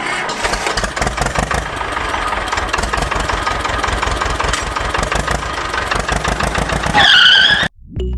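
Small motor-driven machine running steadily with a fast, dense rattle. About seven seconds in, a short high-pitched cry with wavering pitch rises over it, then the sound cuts off suddenly.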